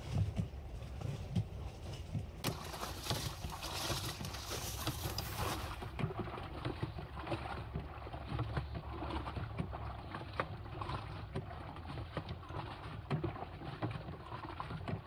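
Hand-cranked stainless-steel laundry washer being turned, with water and clothes sloshing inside its drum.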